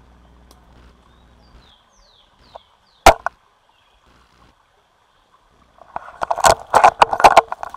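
A single sharp shot from a bolt-action airsoft sniper rifle about three seconds in. From about six seconds there is a quick, dense run of clicks over rustling noise.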